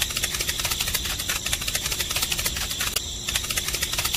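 Fast, dense run of dry ticks, like rapid scratching in sand, with a short break about three seconds in, over a steady high chirring of crickets.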